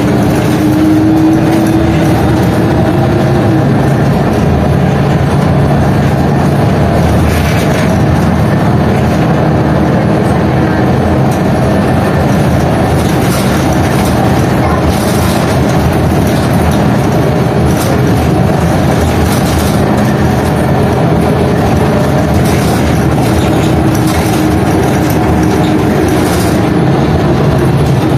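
Ride noise inside an old articulated Ikarus diesel city bus on the move: a steady loud engine and road noise with a droning tone that fades a few seconds in and comes back near the end. Short rattles and creaks from the worn bodywork come through the noise.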